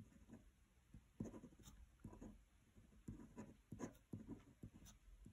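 Pen writing on paper: a faint series of short, irregular scratching strokes as figures are written.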